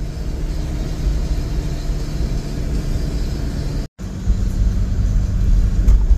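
Car driving on a paved road, heard from inside the cabin: a steady low rumble of engine and tyres. It drops out for an instant about four seconds in and carries on.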